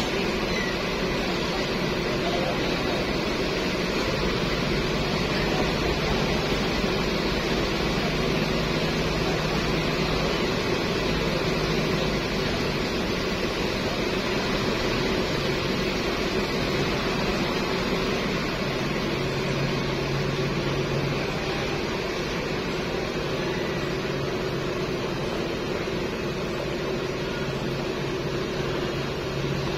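Steady hum of big coach buses idling with their air-conditioning running. A deeper engine tone comes in about eight seconds in and again from about nineteen seconds on, as one coach pulls away.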